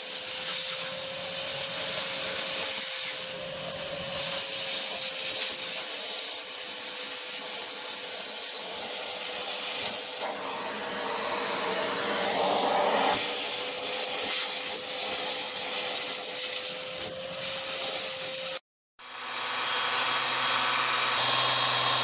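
Numatic vacuum cleaner running with an Airo Brush air-driven turbine brush head worked over carpet. It makes a steady suction hiss with a constant whine and brushing against the carpet pile. It cuts off abruptly near the end, then a steadier machine hum with a low drone starts.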